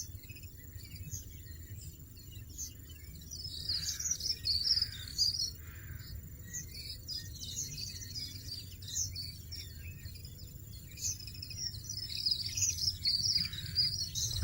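European goldfinches chirping: many short, high twittering notes coming in clusters.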